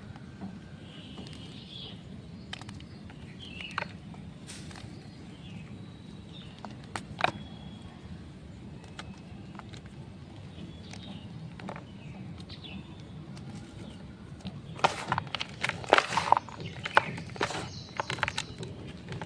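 Dyed gym chalk being crushed and crumbled by hand: a run of loud, crisp crunches about fifteen seconds in, after a long stretch of faint background with scattered small clicks and a few short high chirps.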